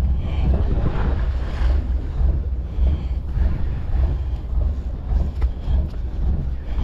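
Wind buffeting the microphone in gusts, over the wash of the sea around a small boat.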